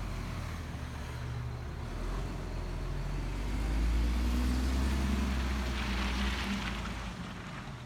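Garbage truck engine running outside, a low rumble that grows louder about halfway through and then fades near the end.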